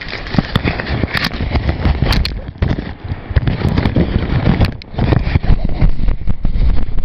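Handling and wind noise on a jostled handheld camera's microphone: loud, irregular crackles and knocks over a steady rushing noise.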